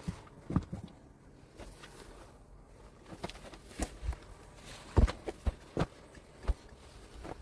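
Irregular knocks and thuds, some sharp and some dull, coming at uneven intervals; the loudest knock falls about five seconds in.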